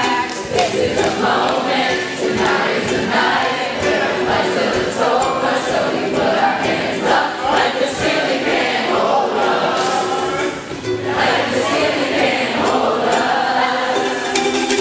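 Ukulele strummed steadily under loud singing, with many voices singing together.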